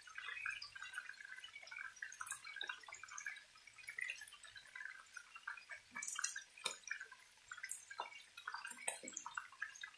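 Chicken pieces frying in oil in a pan: a steady, fairly quiet crackle of small pops and spits, with a few louder pops about six and nine seconds in.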